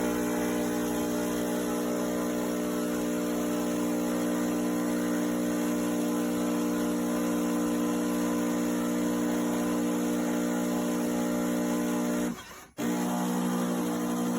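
Miele CM 5310 automatic coffee machine running its milk-pipework rinse: a steady hum of several held tones with water rushing through. It cuts out briefly about twelve seconds in, then carries on.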